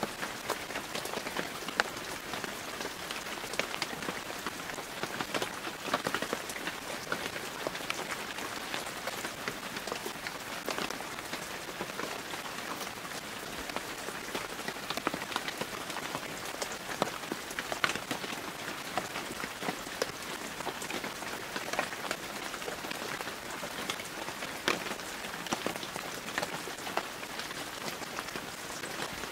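Heavy hail mixed with rain pelting tarmac and parked car bodies: a dense, steady hiss of impacts with many sharp individual ticks standing out.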